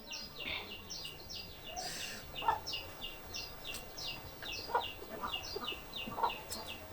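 Poultry calling: a steady run of short, high, falling chirps, about three a second, with a few lower clucks in between.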